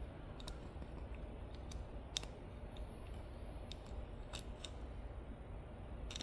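Faint, scattered light clicks of small metal parts of a steering-column ignition lock cylinder and actuator gear being turned and handled, with the sharpest click about two seconds in.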